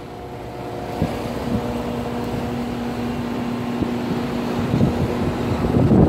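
2014 Rheem 3-ton central air conditioner outdoor unit running: the compressor hums steadily with a few fixed tones under the rush of air from the condenser fan. The level builds over the first second and a half, when the strongest hum tone comes in, then holds steady.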